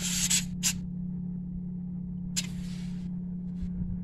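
Short spurts of air hissing from a tire valve while the pressure is being checked: two within the first second and a longer one at about two and a half seconds. A steady low machine hum runs underneath.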